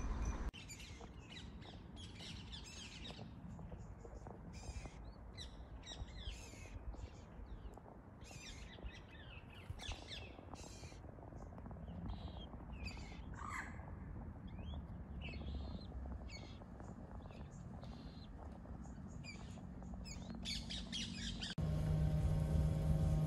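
Moorhen chicks peeping: many short, high-pitched calls in quick succession. Near the end this cuts suddenly to a steady low engine-like hum.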